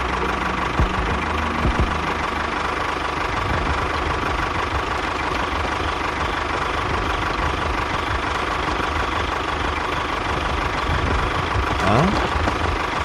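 A cartoon construction-vehicle engine sound effect running steadily with a low rumble. A rising glide comes in near the end.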